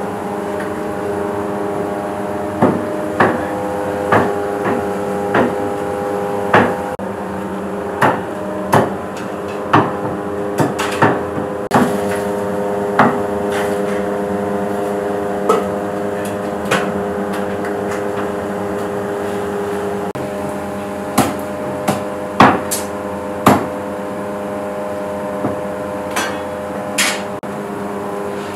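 Irregular sharp metallic knocks and clanks, like metal utensils striking large aluminium cooking pots, some in quick clusters, over a steady hum.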